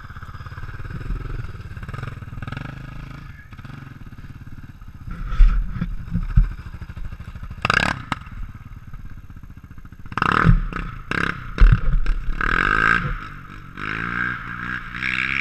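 An ATV engine idling close by, with several heavy thumps and clattering knocks, then the engine pitch rising near the end as it is revved.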